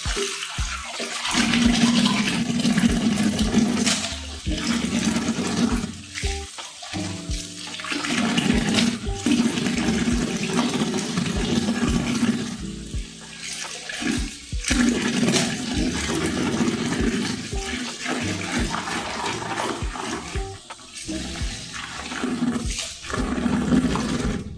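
Water sloshing and splashing in repeated stretches of a few seconds, as keyboard keycaps are washed by hand in a bucket of soapy water.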